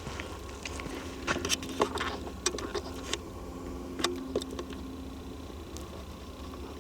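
Footsteps and handling noise crackling and ticking irregularly on a walk through forest undergrowth, over a steady low rumble, with a faint steady insect buzz, the mosquitoes that are everywhere.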